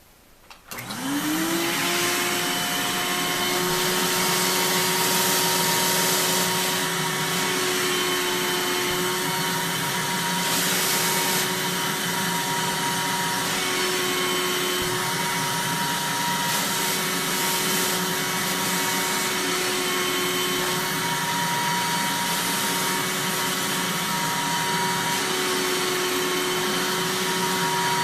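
Eureka Mighty Mite 3112A canister vacuum cleaner switched on about a second in. Its motor spins up with a quickly rising whine, then runs steadily, the whine over a rushing hiss of air.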